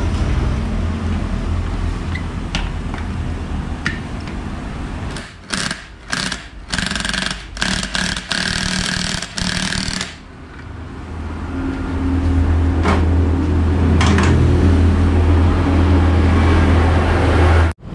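Cordless drill run in a string of short bursts on a scooter CVT pulley set, with a whirring of the drill motor at each trigger pull. After that, a steady low drone builds up to become the loudest sound.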